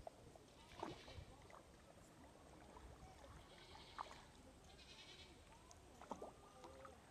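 Near silence: faint outdoor ambience with a few soft knocks.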